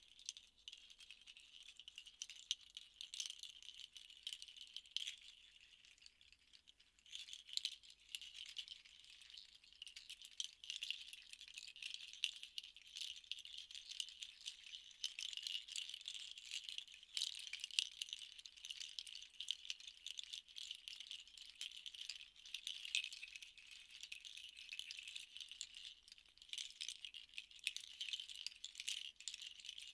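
A pair of hand rattles shaken continuously, a soft dry rustling with many small clicks. It eases off for a few seconds about four seconds in, then picks up again.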